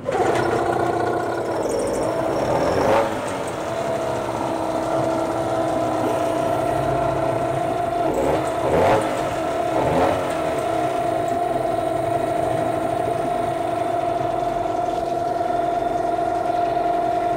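Two-cylinder Hangkai outboard motor catching on the start and running unevenly, with brief surges in speed about three, nine and ten seconds in. It runs badly: the engine was damaged by overheating and will not hold a steady idle.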